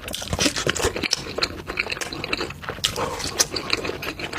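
Close-miked wet eating sounds: chewing and smacking, a quick run of many short clicks.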